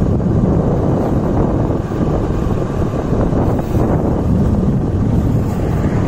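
Steady wind rumble on the microphone, a loud low noise with no distinct events.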